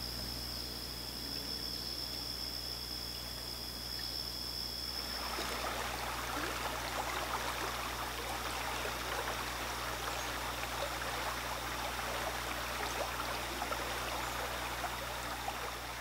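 Shallow river running over rocks, a steady rush and babble of water that comes in about five seconds in. Before that, a steady high-pitched whine.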